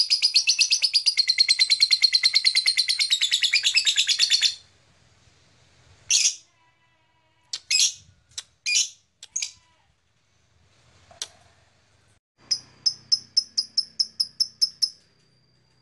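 Blue masked lovebird chattering in a long, rapid trill for about four and a half seconds. After that it gives scattered single sharp chirps, then a quick run of about ten chirps near the end.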